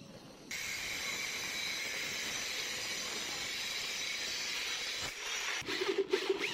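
Angle grinder with a cut-off disc cutting through steel sheet: a steady cutting noise that starts abruptly about half a second in. Near the end it gives way to an electric drill boring into the steel sheet, going in short uneven bursts.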